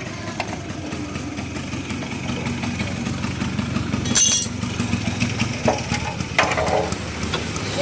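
Motorcycle engine running with the drive chain and rear sprocket turning and making noise, the noise typical of a chain-sprocket set worn after 15,000–20,000 km. A brief sharp sound cuts in about four seconds in.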